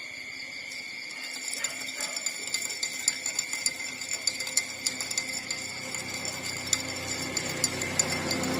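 Nursing puppies suckling: an irregular run of small wet clicks and smacks, several a second, starting about a second and a half in, over a steady high-pitched whine.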